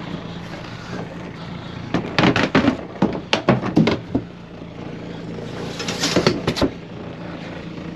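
An engine running steadily, with clusters of sharp knocks and clatters about two to four seconds in and again around six seconds.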